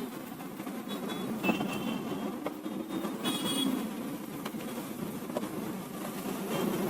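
Light clicks and knocks of plastic printer covers being handled and fitted back into place, over a steady low hum.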